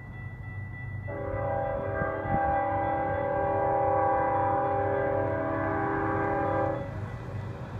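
Diesel locomotive's multi-chime air horn sounding one long, steady chord, starting about a second in and cutting off near the end, over a low rumble.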